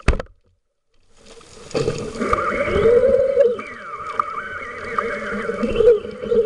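A sharp click right at the start, then near silence, then from about a second in a muffled underwater rush of water against a waterproof camera housing mounted on a speargun, with wavering tones running through it.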